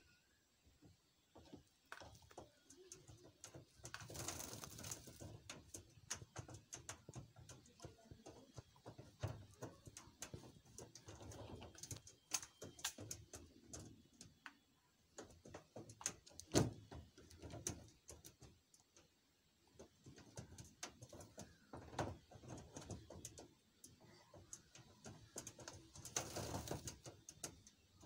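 A parakeet bathing in a small plastic water cup in a wire cage: scattered clicks and knocks as the cup and the bird's beak and feet hit the wire floor, with two short bursts of wing-flapping and splashing, about four seconds in and near the end.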